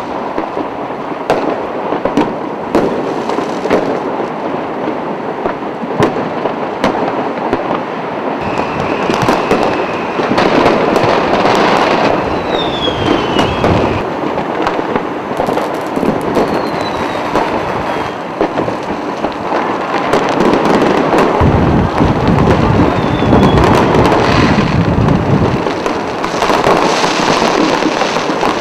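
Many fireworks and firecrackers going off at once: a continuous dense crackling with many sharp bangs and pops, and now and then a short whistle falling in pitch. Heavier, deeper booms thicken the barrage in the second half.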